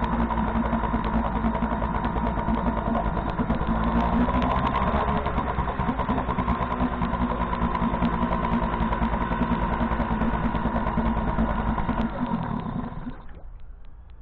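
Tohatsu two-stroke outboard motor running steadily, then shut off near the end, its note dying away over about a second.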